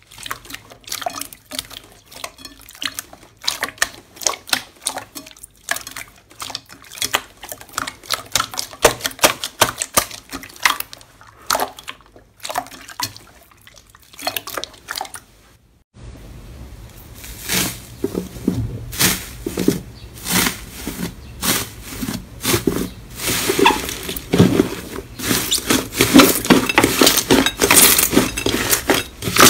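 Hands squeezing and kneading slime, making rapid, irregular wet clicks and pops as trapped air is squeezed out. About halfway through, the sound switches to a second slime being kneaded, with denser squelching over a steady low hum.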